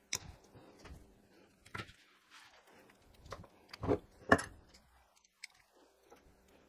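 Scattered sharp clicks and crunchy snips from insulated pliers cutting and stripping the flex cores of a 13 amp plug, with tools handled on a wooden bench. A pair of louder knocks about four seconds in is the loudest sound.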